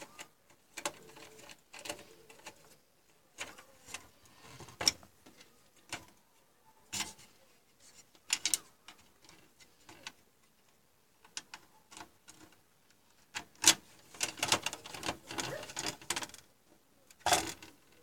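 Irregular clicks, taps and scrapes of a screwdriver and hands working at the plastic CPU heatsink retention bracket on a desktop motherboard, with a busier run of rattling taps in the last few seconds.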